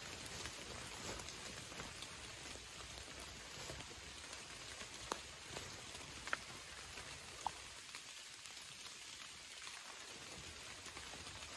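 Steady rain falling on a forest, an even hiss, with a few sharp single taps standing out near the middle.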